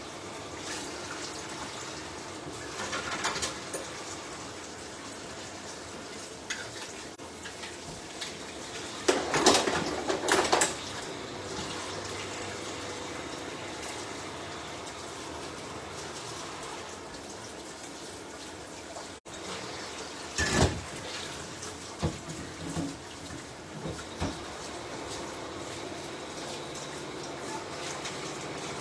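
Spaghetti simmering in a little starchy cooking water in a steel pan, bubbling steadily, with a few louder bursts of bubbling as it cooks down.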